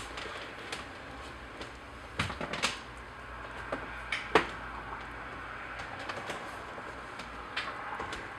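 Scattered soft knocks and scuffs over a steady low background, with a few louder ones around two and four seconds in: nursing kittens shifting and pushing against the sides of a cardboard box and the cloth in it.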